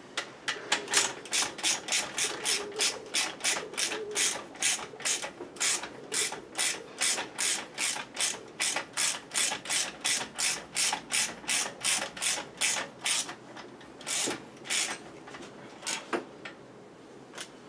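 Ratchet wrench clicking in steady, even strokes, about three a second, as a bolt is turned; after about thirteen seconds the rhythm stops and only a few single clicks follow.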